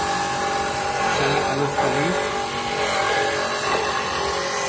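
Electric coconut grater running, its motor giving a steady machine hum like a drill, with the pitch wavering now and then as coconut is pressed against the grating drum.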